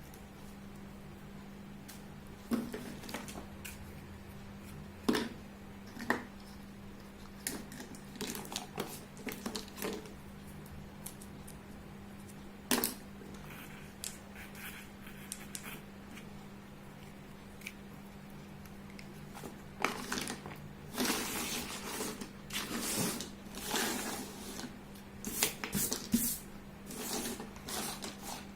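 Small plastic toy pieces and their packaging being handled: scattered clicks and taps, then a busier run of clicking and rustling over the last several seconds, over a steady low hum.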